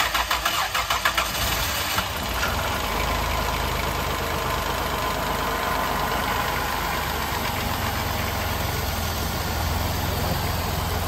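2006 Dodge Grand Caravan's 3.3-litre V6 cranking in quick even pulses, catching about two seconds in and settling into a steady idle.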